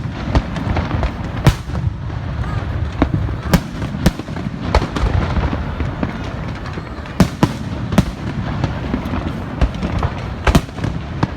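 Fireworks going off: sharp bangs at irregular times, a dozen or more, some close together, over a continuous low rumble of further explosions.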